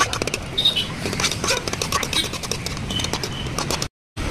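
Steel ladle stirring and scraping through food in a steel kadai, clinking against the pan again and again, over street background noise. The sound cuts out for a moment near the end.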